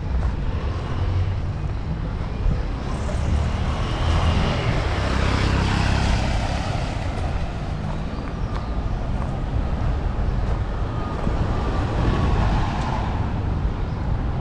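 Street traffic: a vehicle passes, its noise swelling and fading about halfway through, over a constant low rumble of the street.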